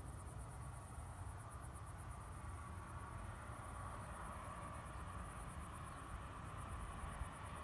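Insects in the grass chirring steadily, a high, fast, even pulsing, over a faint low rumble.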